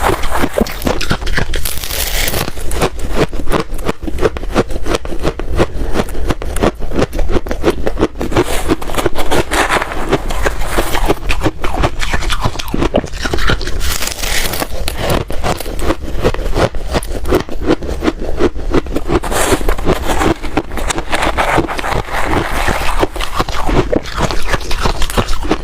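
Ice being bitten and chewed close up: a continuous, fast run of crunches and cracks.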